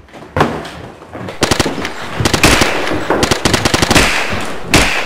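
Rapid automatic gunfire in long bursts, many shots close together. It starts about half a second in and grows denser and louder after about a second and a half.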